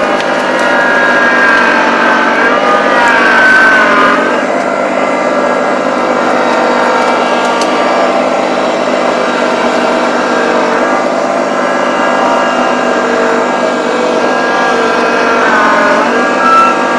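Small tractor's engine running hard under load, its pitch rising and falling as the engine labours and revs.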